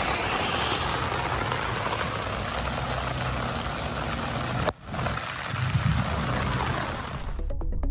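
Water gushing steadily out of a corrugated drain pipe outlet and splashing over river rock as the new storm drain line discharges, with a brief break about two-thirds of the way through. Music starts near the end.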